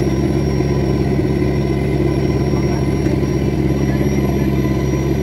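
A fishing boat's inboard engine running steadily under way, a constant low drone made of several steady tones.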